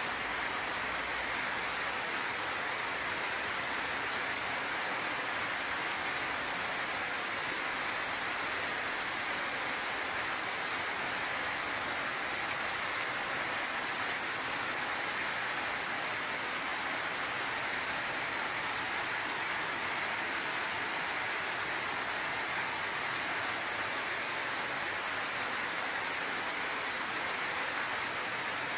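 Steady, unbroken high-pitched hiss with no separate events.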